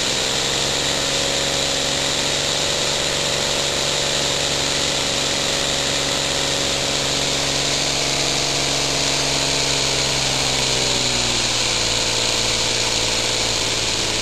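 Homemade elbow steam engine running on compressed air: a steady whirring hum over a loud hiss of air. It comes up to speed at the start, slows about ten seconds in, then picks up again near the end.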